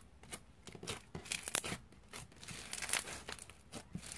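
Foam-bead slime squeezed and kneaded by hand: the foam beads crunch and trapped air bubbles pop in a run of irregular crackles.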